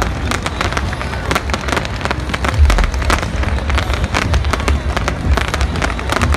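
Fireworks display: a rapid, continuous string of crackles and bangs over a low rumble, with a heavier boom a little over two and a half seconds in.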